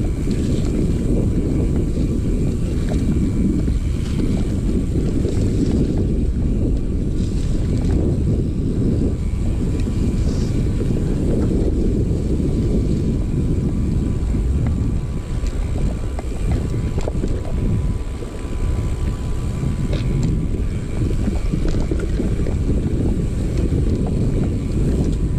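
Mountain bike riding fast down dirt singletrack: a loud, steady low rumble of wind on the microphone mixed with tyres rolling over dirt, with a few sharp clicks and knocks from the bike.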